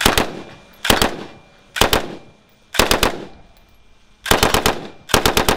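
Surefire MGX open-bolt light machine gun firing six short bursts of automatic fire, two to five shots each, about a second apart, each burst trailing off in echo. The last bursts are the longest.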